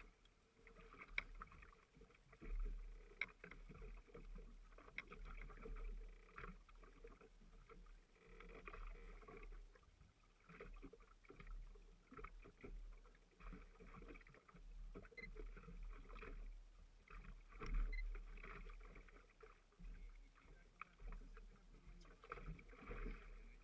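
Faint water lapping and slapping against the hull of a small fishing boat, swelling and fading every second or two over a low rumble, with scattered short knocks.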